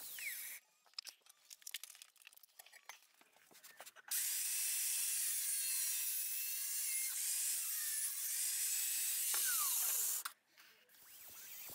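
Hand-held Worx angle grinder's disc cutting into a steel lawn mower blade clamped in a bench vise: a loud, steady, high hiss with a faint wavering whine, starting about four seconds in and cutting off suddenly about ten seconds in. Before it come a few seconds of light clicks and knocks.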